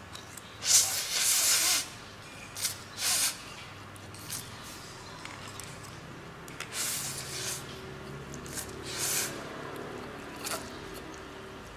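A person slurping saucy instant noodles in several slurps, the loudest and longest about a second in, with a few short mouth clicks between.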